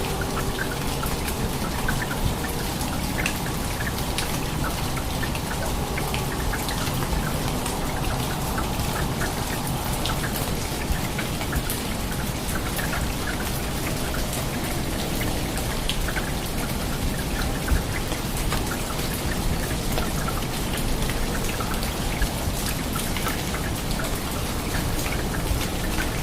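Heavy rain falling steadily, a dense hiss full of close drops ticking on hard surfaces, with a few sharper drop hits.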